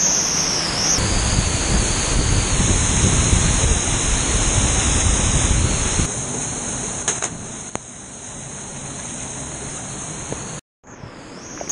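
Rushing water of a canyon waterfall and cascade, a steady roar that is heavy and rumbling for the first six seconds, then lighter and thinner after a change in the sound. It cuts out briefly near the end.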